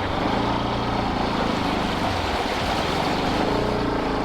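Motorcycle engine running steadily while riding through a stream crossing, with the rush and splash of water around the bike.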